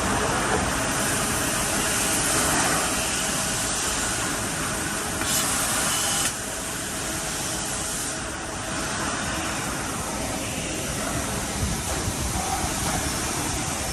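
Steady machine-shop noise from CNC machining: a mechanical hum with a continuous hiss. About five seconds in, a louder high hiss sounds for about a second and cuts off suddenly.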